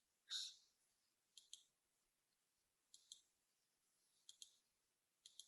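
Near silence, with a soft brief rustle just after the start and then faint pairs of short clicks about every second and a half, four times.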